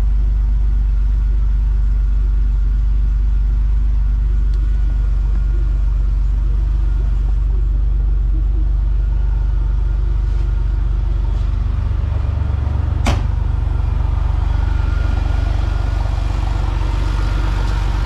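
The 1997 Porsche 911's air-cooled 3.6-litre flat-six is idling steadily, still warming up after a cold start. A single sharp knock sounds about two-thirds of the way through.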